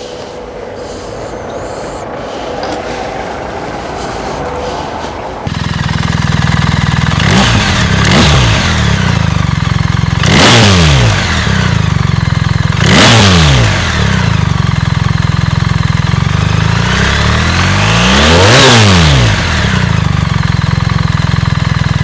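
BMW R 1300 GS boxer-twin engine with an Akrapovic silencer, starting up about five seconds in and idling. It is revved about five times, each rev rising and falling back to idle, the last one near the end held a little longer.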